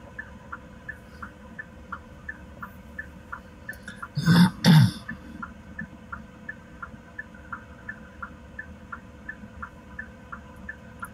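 A person coughs twice in quick succession about four seconds in, over a faint low background hum. A faint, regular ticking, about three a second, runs underneath.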